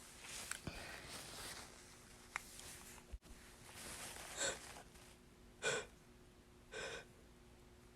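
A person's faint breathing and sniffing, with three short, sharp in-breaths about four and a half, five and a half and seven seconds in: the catching breaths of a sneeze that is stuck and won't come out.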